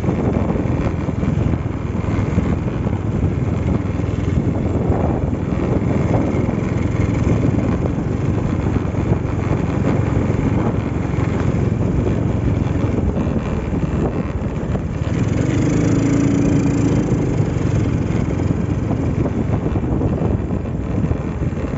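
Motorcycle engine running steadily while riding over a rough gravel road, mixed with a heavy rumble of wind on the microphone.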